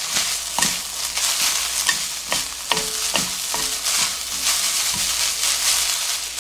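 Damp, rehydrated bracken fern stems sizzling in hot oil in a nonstick pan as they are stir-fried with a wooden spatula and chopsticks. A steady hiss, broken by irregular taps and scrapes of the utensils against the pan a few times a second.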